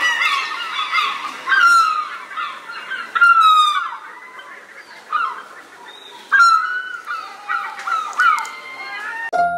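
A flock of birds calling, many calls overlapping and bending up and down in pitch, a few of them rasping.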